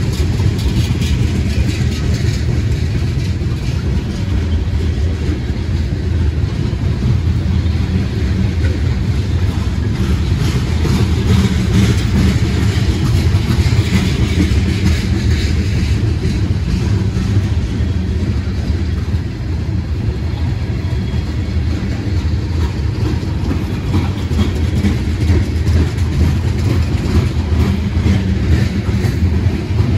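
Freight train of tank cars rolling past close by: a loud, steady rumble of steel wheels on rail with a constant fine clatter.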